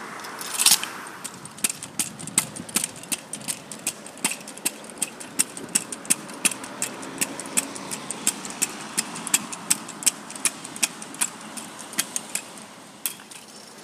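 Kick scooter rolling over pavement: a rolling rumble of the wheels with a rapid, irregular run of sharp clicks and rattles, about four a second, and a louder clack just under a second in.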